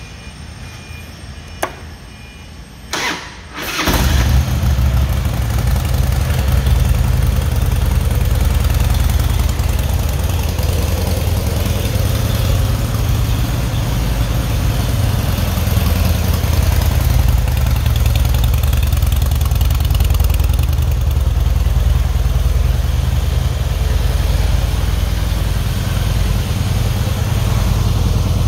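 A 2006 Harley-Davidson Night Train's V-twin engine is started: a click, a brief crank, and it catches about four seconds in. It then idles steadily.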